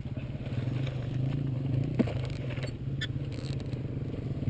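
Dirt bike engine idling steadily, with a fast, even low pulse. Two short sharp knocks about two and three seconds in.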